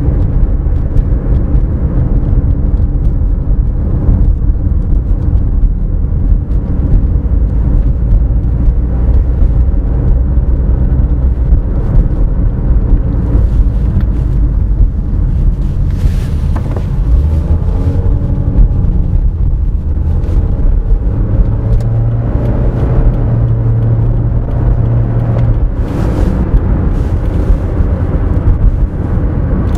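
Cabin sound of a 2011 Toyota RAV4 on the move: steady low road and tyre rumble with its 2.0-litre four-cylinder engine running through the CVT. A low steady hum joins in for a few seconds about two-thirds of the way through.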